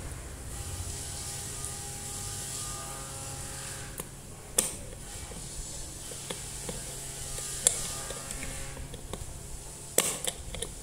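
Needle-nose pliers clicking and tapping against an electric kettle's stainless-steel base while a screw or nut is fastened inside it. There are a few scattered sharp metallic clicks, the loudest a little before halfway, and a quick cluster near the end, over a faint steady hum.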